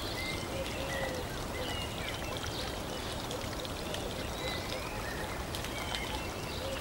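Steady running-water ambience with scattered short bird-like chirps and whistles over it.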